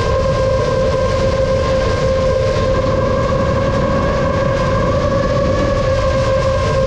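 Motors and propellers of a 7-inch FPV quadcopter whining at a steady pitch over a rushing noise, holding a constant throttle.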